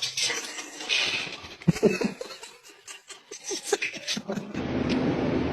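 A person laughing in short, broken bursts, then from about four and a half seconds in a steady low hum.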